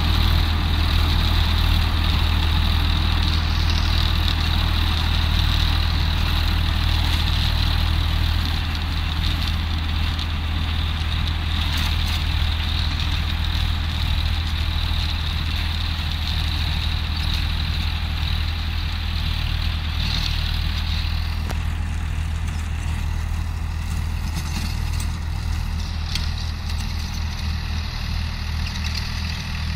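Sonalika DI 745 III tractor's diesel engine running steadily under load while driving a Shaktiman rotavator through the soil, a deep continuous drone. It grows gradually fainter as the tractor moves away, and a higher whine in the mix fades out about twenty seconds in.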